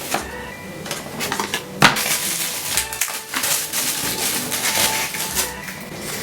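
Sparse background music with scattered sharp clicks and clinks of small hard objects, the loudest a sharp click about two seconds in.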